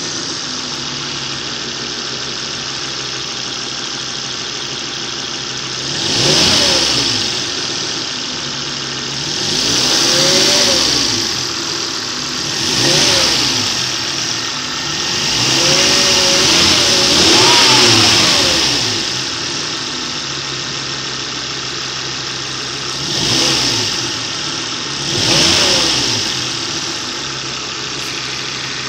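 Volvo S60 engine idling steadily and being revved up and back down six times, each rev a rise and fall in pitch lasting one to three seconds, with the longest about two-thirds of the way through.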